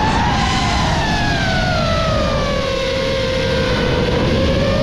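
FPV quadcopter's brushless motors and propellers whining, the pitch sliding slowly down over about four seconds and climbing again near the end as the throttle changes, over a low rush of wind and prop wash.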